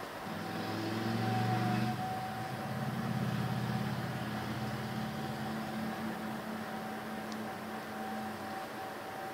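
Low steady hum of a running machine, with a faint steady high whine above it; the hum swells a little in the first few seconds and fades near the end.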